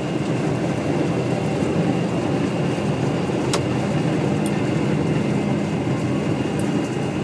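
Farm machinery running steadily in a harvest field: a continuous low engine drone with a faint, steady high whine.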